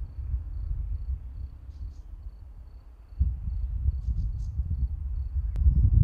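Outdoor hillside ambience: a faint high insect pulse repeating evenly several times a second over an uneven low rumble. A few brief, high bird chirps come about two seconds and about four seconds in.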